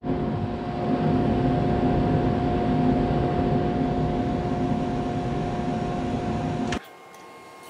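SuperMax 19-38 drum sander running with its dust extraction: a steady machine noise with a steady hum, cutting off abruptly near the end.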